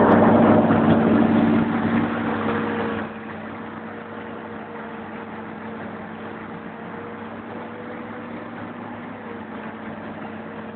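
Excavator's diesel engine running, heard from the operator's cab with a steady hum. It is loud for the first three seconds, then drops to a lower, even level for the rest.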